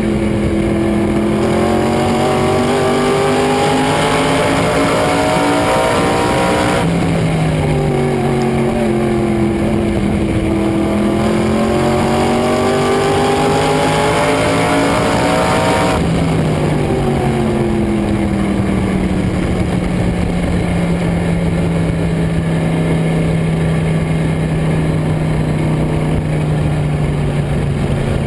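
Race car engine at speed, its pitch dipping and climbing twice with a sharp drop after each climb, then holding a steady lower pitch for the last ten seconds.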